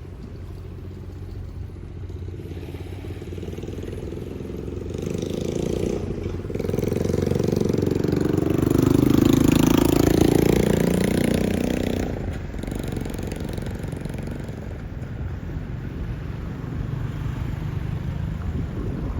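A motor vehicle's engine running, growing louder as it passes close by about nine to ten seconds in, its pitch bending as it goes by, then falling away to a lower steady hum.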